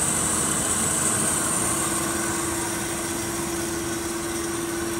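Hyd-Mech Model 23A horizontal bandsaw standing powered up and running idle, giving a steady machine hum. A constant tone grows clearer about halfway through as the overall level eases slightly.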